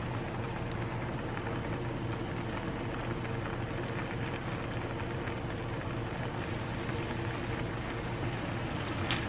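Milk-based sauce boiling hard in a frying pan on a portable gas burner: a steady bubbling simmer over a low, even hum, with a light tap near the end.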